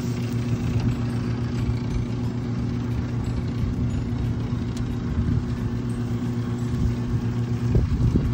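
Motorized rotisserie's drive motor running with a steady, even hum as it turns the spits, over a low rumble. A few low thumps come near the end.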